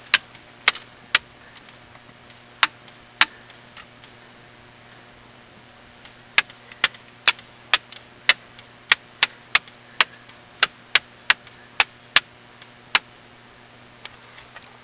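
Airsoft gun firing single shots as sharp snapping cracks: five shots, a pause of about three seconds, then a run of about sixteen shots at two to three a second.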